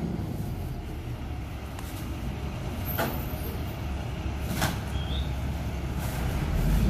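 Diesel engine of a single-axle International MV garbage truck running low and steady as it creeps along the street, with two sharp knocks about three and four and a half seconds in. The engine grows louder near the end as the truck pulls ahead.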